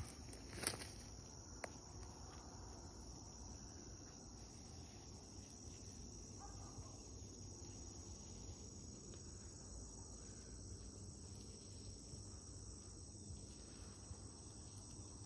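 Insects chirring in a faint, steady, high-pitched drone, with a short sharp knock about a second in.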